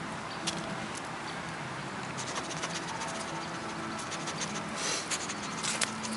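Small puppies' claws clicking and scratching on brick paving: a scatter of light clicks that thickens near the end, over a steady hiss.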